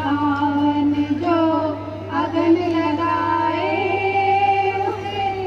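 A woman singing a song into a microphone with no instruments, holding long notes and gliding between them. A steady low hum runs underneath.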